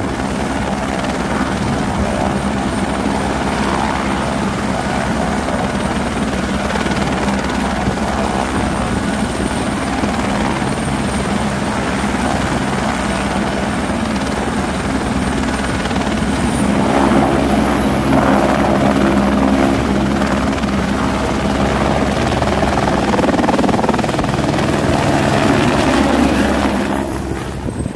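Airbus AS350 Écureuil single-engine turbine helicopter running on the ground, with a steady rotor beat and a high turbine whine. About 16 seconds in the whine rises and the sound grows louder as it powers up for takeoff and lifts off.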